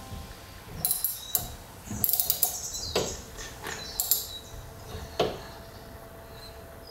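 Scattered sharp clicks and small metallic knocks, about half a dozen at uneven spacing, from hands working the service valves on a tankless water heater.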